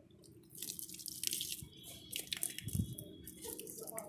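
Water poured from a plastic jug, splashing and soaking into the sandy soil of a plant bed, with a dull thud about three seconds in.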